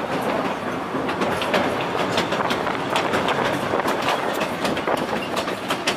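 Amusement-park train's passenger car riding along the track: a steady rumble and rattle with many sharp clicks from the wheels over the rail joints.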